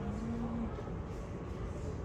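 Steady low rumble of room background noise, with a brief low hum in the first half-second or so.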